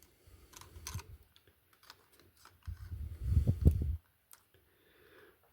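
Light clicks and rustling as electrical wires and the double wall socket are handled and pushed into place, with a longer low rubbing patch about three seconds in.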